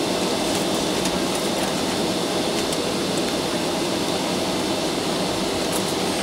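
Boeing 757-200 cabin noise while taxiing: a steady rumble of the engines, air conditioning and wheels rolling over the taxiway, with a few faint ticks and rattles.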